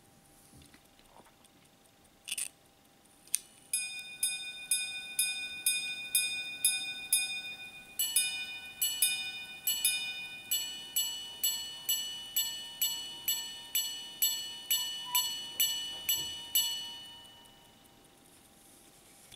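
Minute repeater wristwatch, recased from a pocket watch, striking the time on its gongs after a couple of clicks from the repeater slide: a series of low strikes for the hours, then paired two-tone strikes for the quarters, then a run of high strikes for the minutes, each ringing on before the last dies away.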